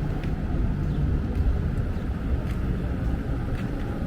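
Steady low rumble of race car engines running on the circuit, with one engine note held steady and fading out about a second in.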